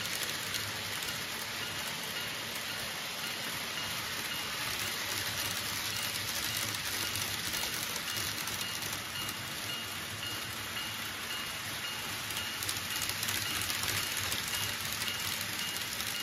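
Model trains running on a layout's track: a steady high rolling hiss of wheels on rail, with a faint high whine.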